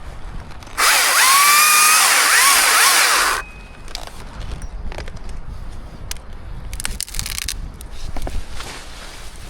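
Chainsaw throttled up for a short burst of about two and a half seconds, its pitch rising to full speed and then cutting off. Quieter knocks and rustling follow.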